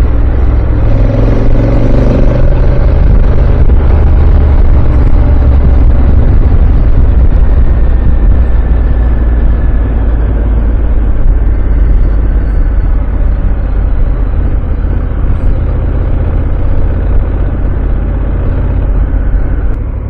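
Honda Africa Twin motorcycle on the move: heavy, steady wind rumble on the microphone with the engine running underneath.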